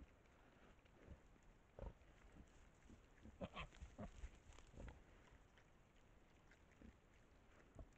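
Wild hogs grunting several times while rooting and feeding, mostly in a cluster of short grunts from about three to five seconds in.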